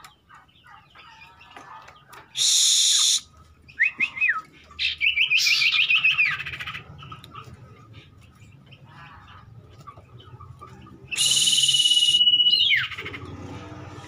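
Caged common ioras calling: a loud harsh rasping burst about two seconds in, then a run of quick chirping notes. Near the end comes a long, steady high whistle that drops away sharply, overlaid by a second harsh rasping burst.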